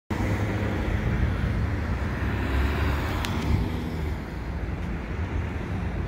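Steady low rumble of road traffic, with a brief sharp click about three seconds in.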